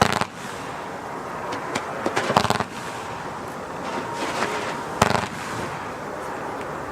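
Nico Hamburg F2 battery firework (cake) firing: sharp bangs at the start, a cluster about two and a half seconds in, and another about five seconds in, with crackling in between.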